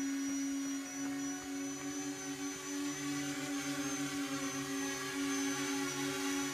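E-flite Convergence VTOL model's three electric motors and propellers in a low hover: a steady buzzing hum with a thin high whine above it, the pitch wavering slightly as the throttle is adjusted.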